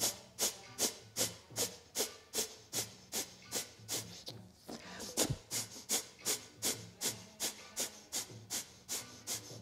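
Kapalabhati breathing: a woman's short, sharp exhalations forced out through the nose in a steady rhythm, about two and a half a second, with a brief break about halfway through.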